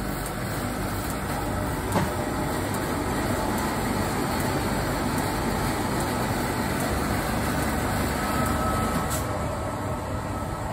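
Steady low mechanical hum and rush of a Slurpee frozen-drink machine running, with a single sharp click about two seconds in.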